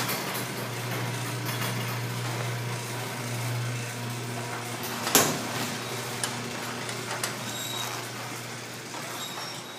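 Craftsman half-horsepower garage door opener running: a steady motor hum with mechanical rattle as it drives the door, a sharp clunk about five seconds in and a few lighter clicks after it.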